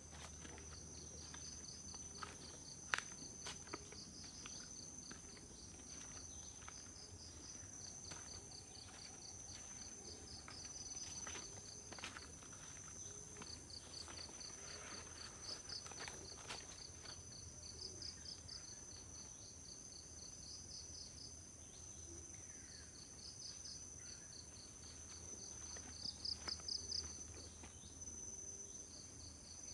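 A faint chorus of insects in tropical forest: one high, steady continuous trill with rhythmic runs of pulsing chirps just beneath it. A few sharp clicks of footsteps on leaf litter come and go.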